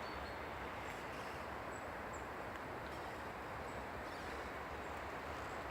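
Wind rushing steadily through pine trees, with a few faint high chirps.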